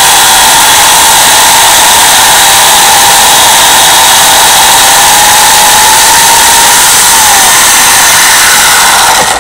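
Portland 14-inch electric chainsaw running loud with its motor and chain whining while it cuts down through a log. The pitch sags a little about seven seconds in, and the sound cuts off sharply near the end.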